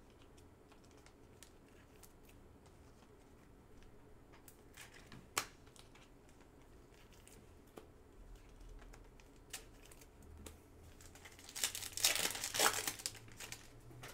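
Foil trading-card pack being torn open: faint scattered clicks of handling, one sharper click about five seconds in, then a couple of seconds of loud crinkling and tearing of the foil wrapper near the end.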